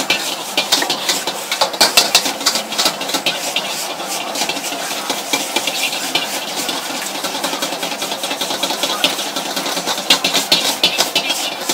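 Egg noodles sizzling in a hot wok while a metal ladle clanks and scrapes against the pan as they are stir-fried. The clanks come thick at the start and again near the end, with mostly steady sizzling in between.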